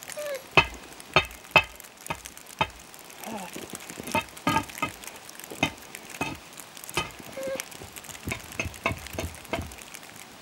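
A hunting dog barking over and over in short, sharp barks, irregularly spaced at about two a second.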